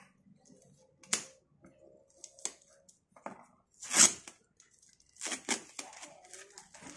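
Packing tape being slit with a knife and ripped off a cardboard box in a series of short tearing rips, the loudest about four seconds in.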